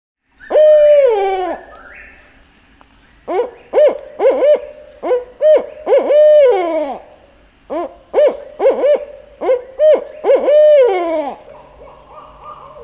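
Owl hooting: a long hoot that slides down in pitch, then two rhythmic series of short hoots, each ending in a drawn-out falling note.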